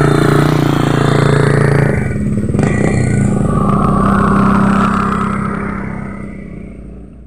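Small motorcycles passing one after the other on a gravel road, engines running; the second is a step-through scooter. The sound fades away near the end.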